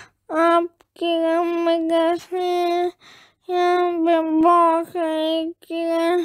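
A child singing unaccompanied in a high voice: a string of short phrases of held, steady notes, each broken off by a brief pause.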